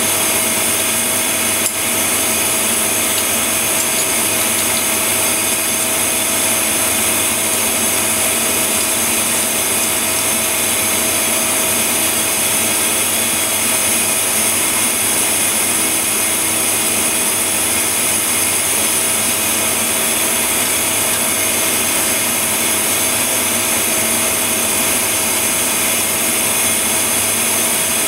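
CNC lathe running at idle: a steady mechanical hum and hiss with several constant tones, unchanging throughout. A single light click about two seconds in.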